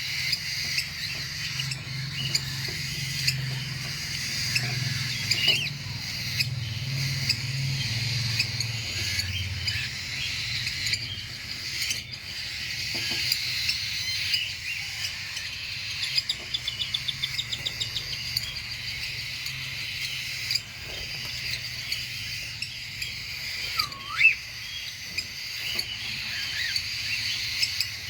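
A flock of cockatiels chattering and chirping steadily, with a rapid trill about halfway through and a swooping whistle near the end. A low hum sits under the first third.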